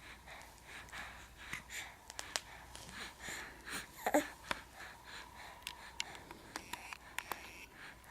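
A baby's soft breathy sounds and little mouth clicks, with one short high-pitched squeak about four seconds in.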